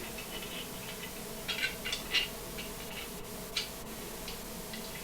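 A few short scratchy squeaks and light clicks of hands working on a mixer tap's metal body and spout fitting, bunched around the middle.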